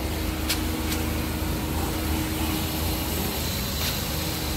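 Gas station fuel pump running while dispensing fuel: a steady low hum and rumble, with three light clicks, two in the first second and one near the end.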